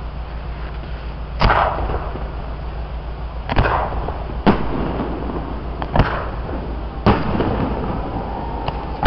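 Fireworks display: five sharp bangs of shells going off, spaced one to two seconds apart, each trailing off briefly.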